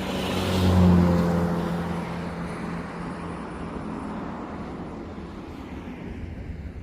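A car passing by on the road, loudest about a second in and then fading away over the next few seconds.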